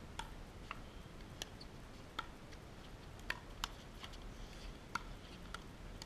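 Pickleball rally: the ball is struck back and forth with paddles, heard as a string of faint, sharp pocks about every half second to a second.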